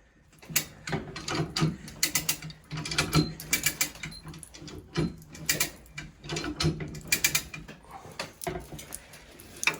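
Hand chain hoist ratcheting, its chain rattling, with irregular metal clicks and clanks as a snowplow hanging from it is raised and worked into its mount.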